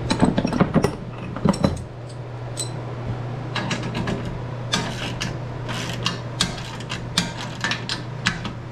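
Steel wrenches clattering as they are picked up, then a ratchet wrench clicking in quick runs as bolts are tightened on a sheet-steel machine stand. A steady low hum runs underneath.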